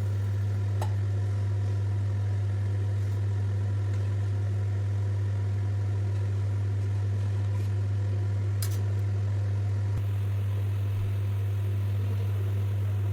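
A steady low hum holding one unchanging pitch, with a couple of faint clicks.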